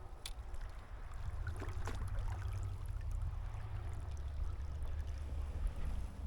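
River water flowing, under a steady low rumble of wind on the microphone, with a few faint splashes or clicks near the start and around two seconds in.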